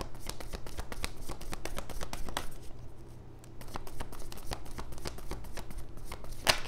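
A tarot deck being shuffled by hand: a rapid run of cards clicking and slapping together, with a louder snap near the end.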